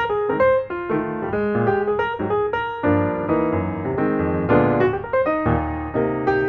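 Background piano music: a quick run of single notes, joined by fuller chords about three seconds in.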